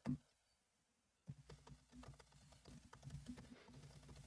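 Faint keystrokes on a computer keyboard: a single key press just after the start, then a run of irregular typing from about a second in.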